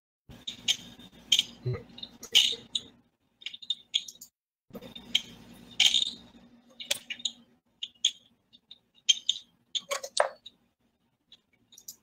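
Irregular clicking and tapping of a computer mouse and keyboard, with a faint low hum under the first few seconds and again around five to six seconds in.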